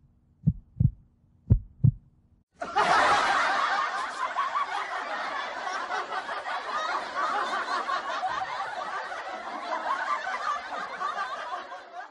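Heartbeat-like low thumps in pairs over a faint hum, then about two and a half seconds in a long stretch of loud laughter that runs for about nine seconds and fades out near the end.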